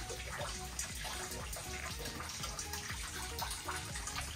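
Water running and splashing steadily, with small drips and ticks.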